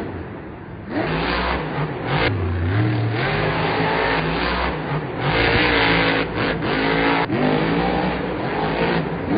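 Son-Uva Digger monster truck's supercharged V8 revving hard in bursts, its pitch rising and falling repeatedly, with a few brief sudden drops in the sound.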